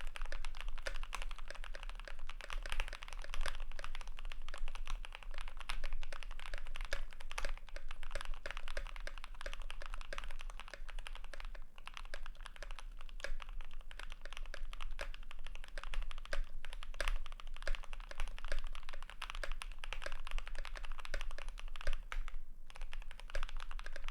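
Continuous fast typing on a GMMK PRO mechanical keyboard with an aluminium plate, lubed KTT Strawberry linear switches and GMK keycaps: a dense, uneven stream of keystroke clacks, with a brief pause near the end.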